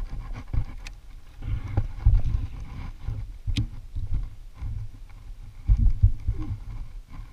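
Irregular low thumps and rumble on a body-worn camera's microphone, with sharp clicks about one second and three and a half seconds in.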